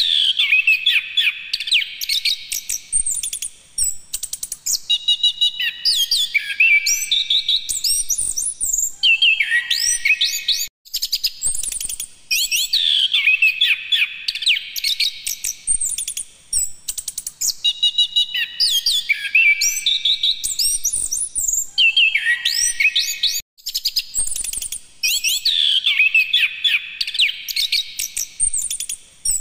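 Chestnut-capped thrush (anis kembang) in full song: long runs of quick, varied, sliding whistled notes in phrases with short pauses between them, the same sequence recurring about every twelve seconds.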